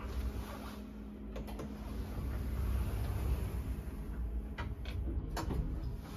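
Automatic stainless-steel sliding doors of an AS elevator car closing, with a steady low rumble from the door drive and car. A few clicks and knocks toward the end as the door panels meet and lock.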